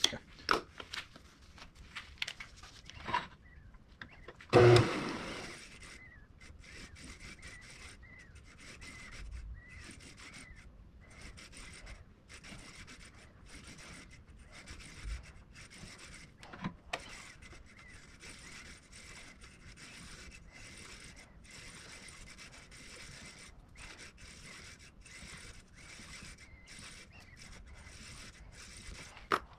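Wood lathe work: a few sharp clicks early, then a short loud burst of a tool cutting into the spinning wood about four and a half seconds in, followed by a faint steady scraping.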